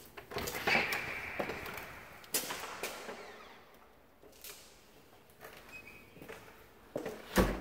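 A door being handled: rustling, a creak and a sharp latch click, then a heavy thump near the end as the door shuts.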